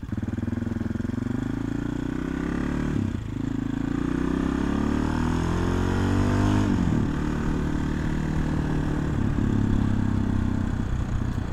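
AJP PR7's single-cylinder engine pulling away under acceleration. Its pitch rises and drops sharply at a gear change about three seconds in, rises again, drops at a second shift near seven seconds, then runs fairly steadily.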